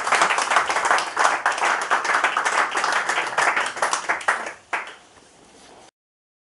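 Audience applauding, a dense patter of many hands clapping that dies away about four and a half seconds in; the sound cuts off abruptly about a second later.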